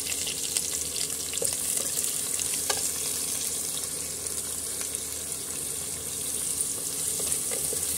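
Roughly chopped onions sizzling in hot oil in a pressure cooker, a steady hiss, as they are stirred with a wooden spatula that knocks against the pot now and then.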